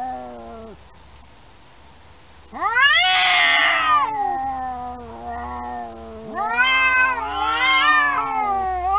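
Two cats yowling at each other in a standoff, the drawn-out caterwaul of a territorial threat display: long wavering cries, a loud rising one starting about two and a half seconds in and another about six and a half seconds in, at times overlapping.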